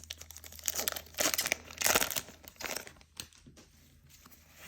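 Foil wrapper of a Pokémon booster pack being torn open and crinkled, in irregular bursts that are loudest in the first three seconds, then quieter handling.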